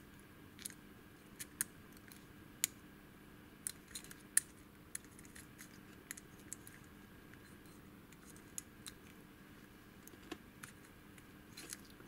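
Faint, irregular metal clicks and scrapes of a lock pick probing and pressing inside the keyway of an old round padlock, a dozen or so sparse ticks with one sharper click about four and a half seconds in; the lock does not open.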